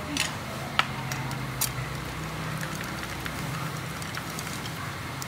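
A few sharp, irregular metallic clicks of hand tools on the motorcycle engine's cover bolts as they are tightened, over a steady low hum.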